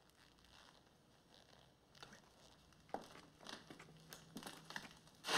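Faint rustling and a few small clicks of clothing and body movement, with a brief louder rustle near the end.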